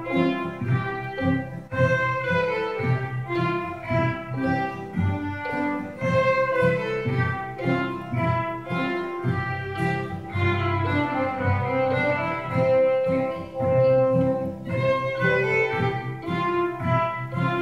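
An adult beginner string ensemble of violins and cellos playing a tune together, with bowed notes moving in a steady melody.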